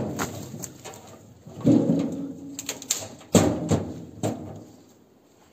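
Pine sticks and branches being dropped and tossed into a trailer, landing with a clatter of wood on wood three or four times and settling briefly after each.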